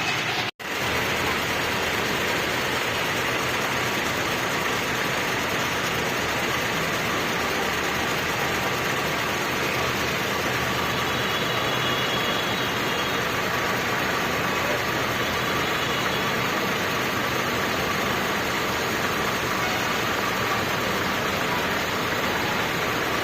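Steady bus engine and traffic noise with no clear changes, broken by a brief dropout about half a second in.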